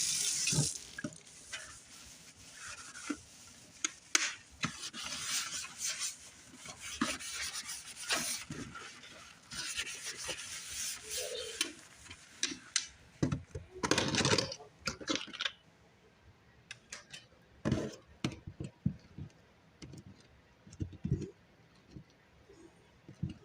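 Kitchen tap running, shut off about a second in, then dishes and cutlery being handled and set down: irregular clinks, knocks and scraping, with a louder cluster about halfway through.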